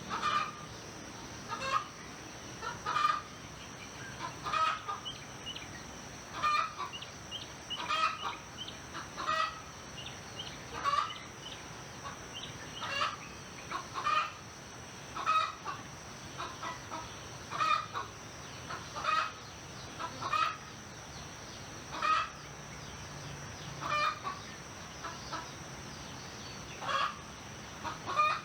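Domestic chickens clucking: short calls repeating about every second or so, over a steady high-pitched hum.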